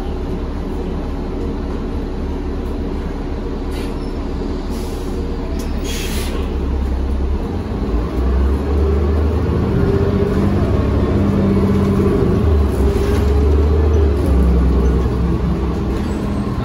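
A 2000-series DC Circulator transit bus heard on board: its engine runs with a steady low drone, then grows louder and rises in pitch from about eight seconds in. A few brief hisses come around four to six seconds in.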